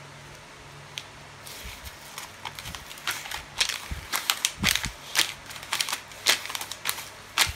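A sheet of printer paper crinkling and crackling as bare toes curl and scrunch it on a wooden floor. Irregular sharp crackles start about a second and a half in and come thicker and louder as the paper bunches up.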